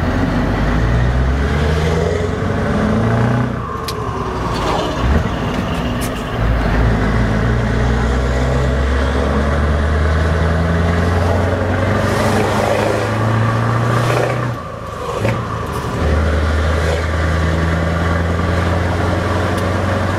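Scania 164L 580's V8 diesel engine on an open exhaust, heard from inside the cab while driving, pulling under load. The note changes with the gear shifts and drops away briefly about three-quarters of the way through before pulling steadily again.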